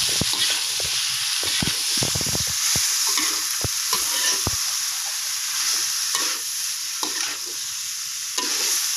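Snails sizzling in a wok while a metal spatula stirs them, with many clicks and scrapes of the spatula against the pan over the steady frying hiss. The clicks are thick for the first few seconds and thin out after about four seconds.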